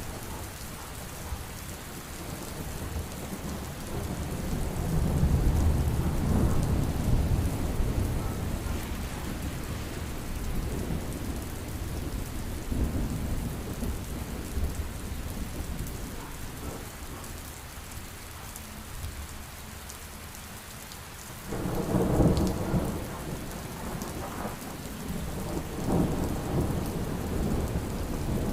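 Heavy rain falling steadily with rolling thunder: a long low rumble swells a few seconds in and fades, then a sudden, louder thunderclap breaks about twenty-one seconds in and rumbles on with another swell near the end.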